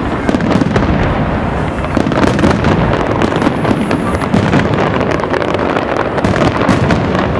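Fireworks display: aerial shells bursting in a dense, continuous run of bangs and crackles, many per second.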